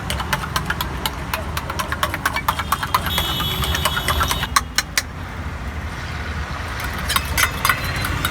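Rapid metal clicks and taps, several a second, typical of a steel spatula working on a flat iron griddle. They pause for a couple of seconds in the middle. A steady low rumble runs underneath.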